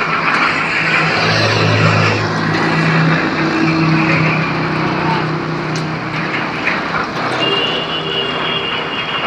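Heavy rain pouring down, a dense steady hiss. A low hum runs under it through the first half, and a thin high tone sounds near the end.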